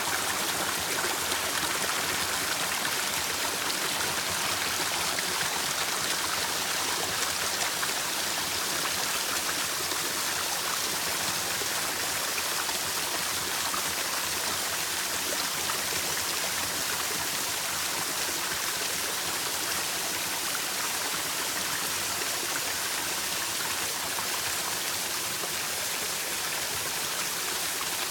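Waterfall in strong spring flow, water pouring and splashing in a steady, even rush.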